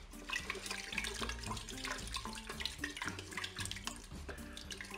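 Wooden spoon stirring a mix of liquid and sausage pieces in a Cookeo's non-stick pot: the liquid sloshes, and the spoon knocks and scrapes lightly against the pot in many small taps.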